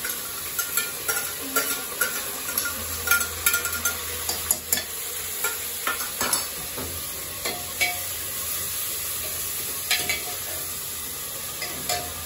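Chopped onions sizzling in hot oil in a pressure cooker while a metal ladle stirs them, clinking and scraping against the pot. The clinks come thick and fast for about the first six seconds, then only now and then.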